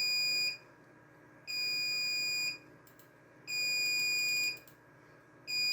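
RAID controller's onboard alarm beeping: a steady high tone about a second long, repeating every two seconds. It signals a failed hard drive in the array.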